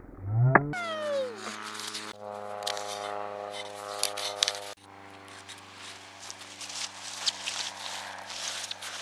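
Background music: a pitch sweep rises and falls, then a track of sustained chords over percussive clicks comes in under a second in, with the upper chord notes dropping out suddenly about halfway through.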